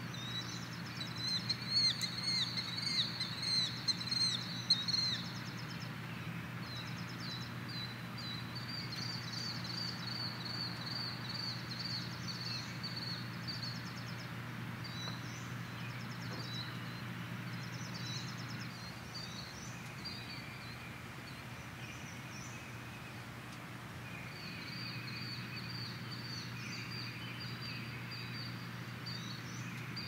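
Songbirds singing in repeated chirping phrases, busiest and loudest in the first few seconds, over a steady low hum that dips for a few seconds past the middle.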